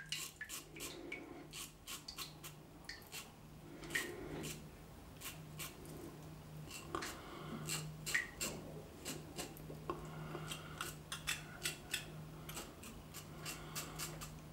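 Wilkinson Sword TTO double-edge safety razor with a Dorco Titan blade scraping through lathered stubble under the nose: faint, crisp cutting strokes in short, irregular runs, several a second.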